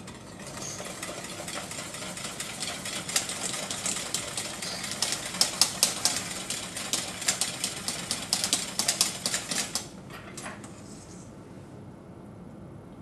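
Wire whisk beating cheese sauce in a stainless steel pot: a rapid run of metal clicks and clatter against the pot's sides, which stops about ten seconds in.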